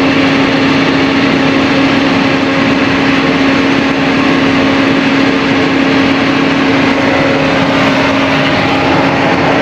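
John Deere 4830 self-propelled sprayer running steadily, heard from inside its cab: a constant hum over an even rush of engine and machine noise.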